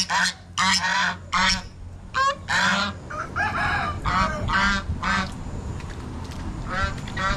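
Domestic waterfowl calling repeatedly: a quick run of short, loud calls, some rising in pitch, for about five seconds, then a pause and two more calls near the end.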